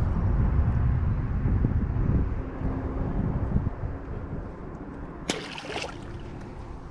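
Low rumble of wind buffeting the microphone that eases after about three and a half seconds, with a brief hissing rustle about five seconds in.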